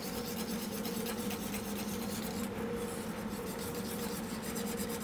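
Wire whisk beating buttermilk dressing in a stainless steel bowl: a rapid, steady run of scraping strokes of the wires against the metal.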